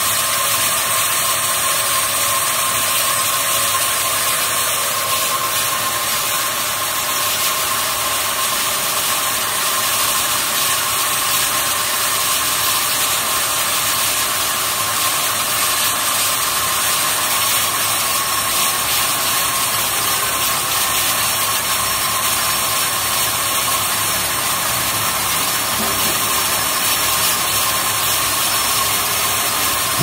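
Automatic sawmill line with twin vertical band saws running: a steady, even mechanical noise with a constant tone in it.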